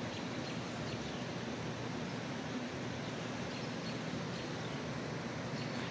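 Steady outdoor town ambience: an even hiss of background noise under a faint low hum, with no distinct events.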